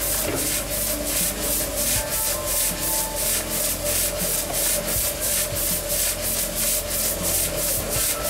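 Live-steam 1:4-scale RhB G 4/5 locomotive model running light with its wheels raised on a test stand. Steam hisses out of the open cylinder drain cocks in an even chuff, about four beats a second.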